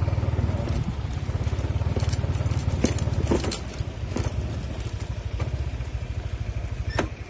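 Motorcycle engine running as the bike rides slowly over rough grassy ground, with scattered knocks and rattles. It eases off about halfway through and stops near the end.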